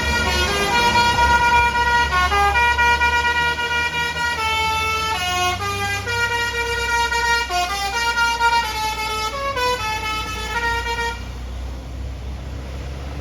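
Bus's Basuri telolet musical horn playing a multi-note melody, its notes stepping up and down, for about eleven seconds before cutting off near the end, with the bus's engine running low underneath.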